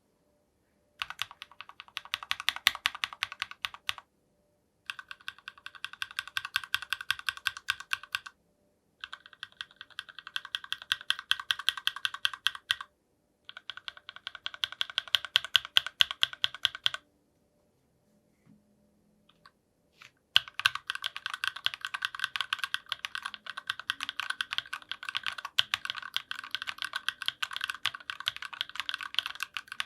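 Fast typing on a mechanical keyboard with stock factory-lubed TECSEE Aurora 68 g linear switches, a brass plate and PBT Cherry-profile keycaps. Five runs of rapid keystrokes are separated by short pauses, the last and longest starting about two-thirds of the way in.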